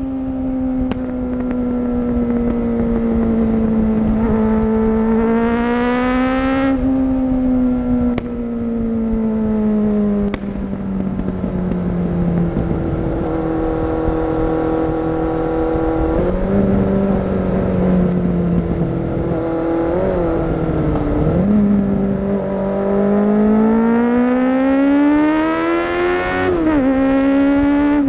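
Kawasaki H2 motorcycle engine running hard inside a road tunnel. The engine note climbs under acceleration and drops suddenly at a gear change about 7 s in and again near the end, with a few sharp exhaust pops along the way.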